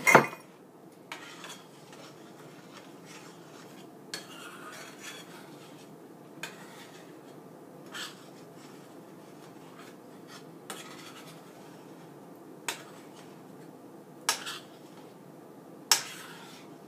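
Metal spoon scraping and clinking against a stainless steel skillet while stirring chocolate gravy as it thickens on the stove, in scattered short strokes every second or two. A loud clatter of cookware being moved sounds at the very start.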